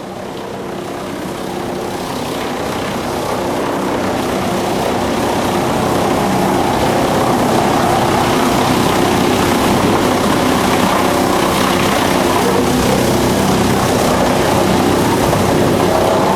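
DFR4-1000 drum wood chipper running steadily: a continuous machine hum with low steady tones over a wash of noise, fading in over the first few seconds.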